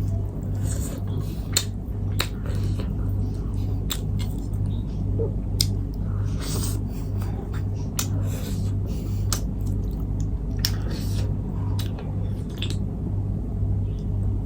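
Close-up eating sounds: a person chewing spicy instant noodles and grilled chicken, with many short wet clicks and smacks of the mouth, over a steady low hum that pulses about twice a second.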